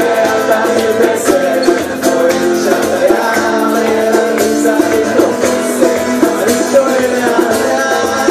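Live acoustic band playing: strummed acoustic guitars with singing over a light, steady percussion beat.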